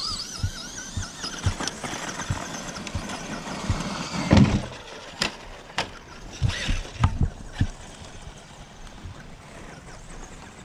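Electric motor of a Traxxas RC truck whining, its pitch wavering up and down as the throttle is worked, over low rumbles and thumps. A loud knock comes about four seconds in, followed by a few sharp clicks.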